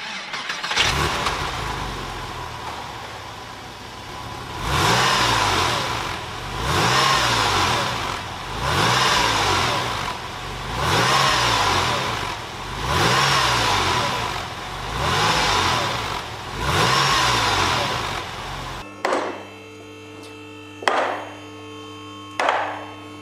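Porsche 911 Carrera (996) flat-six engine on its original factory exhaust, idling and then revved seven times, about every two seconds, each rev rising and falling back. This is the car's stock sound, which the owner finds too quiet and a little asthmatic. The engine sound stops about 19 seconds in.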